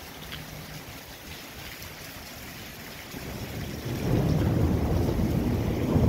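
Thunderstorm: a faint hiss of rain, then a low rumble of thunder that builds about three seconds in and is loud from about four seconds on.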